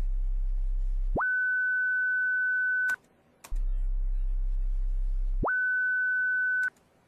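Software synth sine wave from Ableton Live 9 played back in a loop: a deep low hum that suddenly jumps to a high steady beep at the second bar, then cuts off, heard twice. The jump comes from automating the oscillator's coarse pitch setting.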